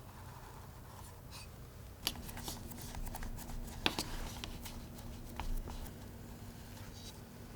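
Light clicks and rustling from hands working with baking utensils and tart dough. The sounds start about two seconds in, over a faint steady hum.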